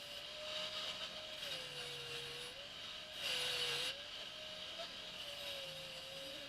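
A power tool's motor running with a steady whine that sags in pitch under load, with a louder rasping spell of cutting about three seconds in.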